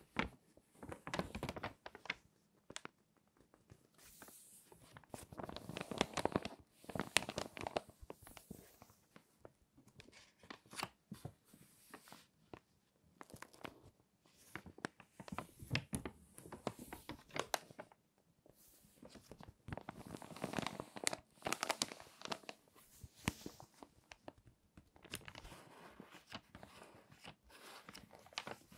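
Stiff, crinkly pages of water-damaged magazines being turned and handled, crackling and rustling in bursts a few seconds apart.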